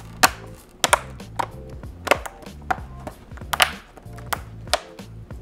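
Sharp plastic clicks and snaps, roughly two a second, as the LCD panel of a Dell Chromebook 11 3110 is pressed back into its plastic top cover and the clips snap into place. Background music plays underneath.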